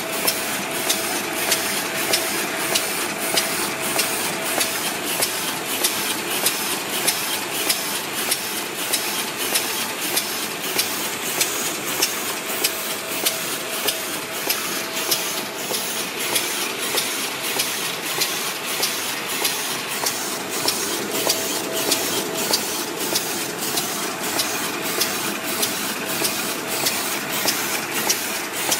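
Fully automatic small paper bag making machine running steadily: an even mechanical clatter with a sharp click repeating about twice a second.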